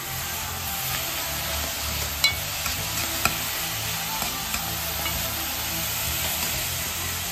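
Food frying in a pan, a steady sizzle, with a utensil stirring and clicking against the pan twice, about two and three seconds in.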